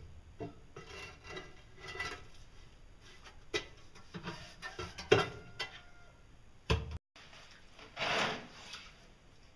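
A metal hand tool scraping and knocking against a mortar-crusted plastic bucket: short scrapes with a few sharp knocks, the loudest about five seconds in and just before seven. After an abrupt break, a longer rubbing scrape comes near the end as a hand wipes mortar over a tiled counter.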